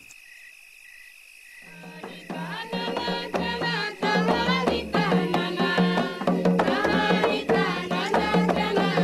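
Crickets chirping faintly, then about two seconds in, kirtan-style folk music fades up and carries on: hand drums like a tabla over a steady low drone, with a melody on top.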